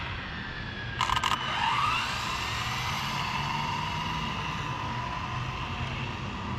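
Brushless electric RC car launching on a speed run: a short scrabbling burst about a second in, then a high motor whine that rises and holds, slowly dropping in pitch as the car pulls away.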